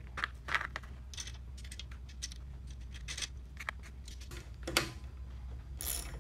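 Scattered light clicks and rustles of hands handling assembly parts, a wooden handle and its bolt hardware being fitted into a wheel hoe's steel handle mount, with a louder click near the end, over a steady low hum.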